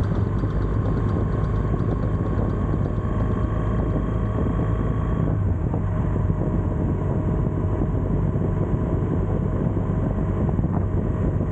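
BMW R1200GS boxer-twin engine running steadily at cruising speed, with wind noise on the microphone. A faint higher tone fades out about halfway through.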